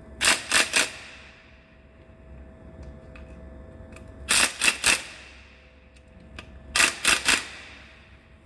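Sump pan bolts being tightened with controlled taps of a tool: three sharp taps in quick succession, repeated three times a few seconds apart, each tap with a short ringing tail.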